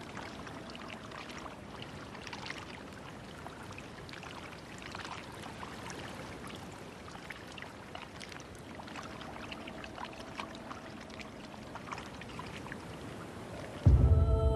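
Hot-spring water flowing and trickling steadily, with small scattered splashes. Just before the end, ambient music cuts in loudly.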